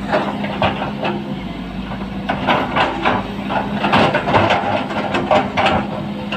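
Volvo crawler excavator's diesel engine running steadily, with a run of knocks and clatter from about two seconds in as its bucket works among rocks.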